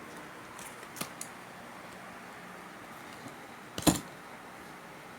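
Hand work on electrical wiring: a couple of faint clicks about a second in, then one sharp snap just before four seconds in, the loudest sound.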